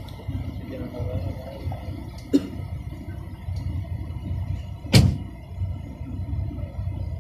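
Steady low road and engine rumble heard inside a moving car. A sharp knock about five seconds in is the loudest sound, with a smaller one about two and a half seconds in.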